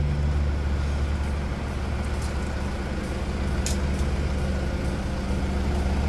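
Engine idling steadily as a low, even hum, with a couple of faint clicks.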